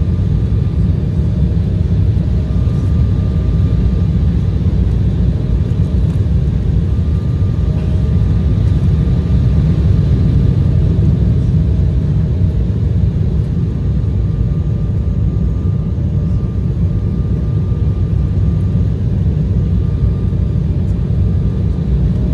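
Cabin noise inside an Embraer E175 airliner on approach: a steady low rumble of engines and airflow, with a faint high whine that comes and goes several times.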